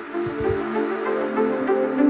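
Background music with sustained chords, growing louder.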